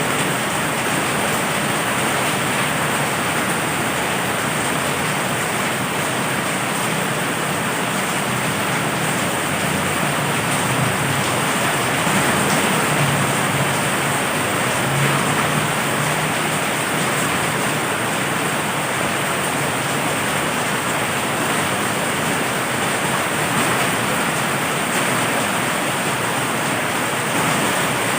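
Heavy rain falling steadily in a dense, even hiss. A low thunder rumble swells briefly about halfway through.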